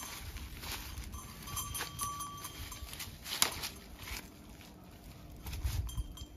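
A tethered cow shifting its hooves on dry leaves and sticks: scattered scuffs, rustles and clicks, with one sharp click about halfway through and a low rumble near the end.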